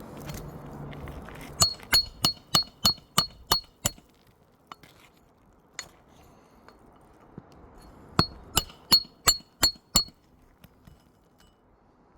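Hammer striking the back of a roof snake, a flat steel shingle-removal tool, to drive it under the shingles and cut the nails. The blows are sharp and ring like metal, about three a second: a run of eight, a pause of about four seconds, then six more.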